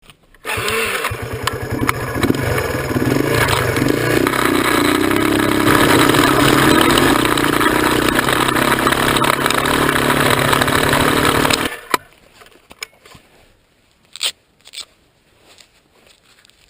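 Motorcycle engine running on a rough mountain trail, its pitch wavering as it works, then cutting off abruptly about twelve seconds in. A few light knocks and clicks follow.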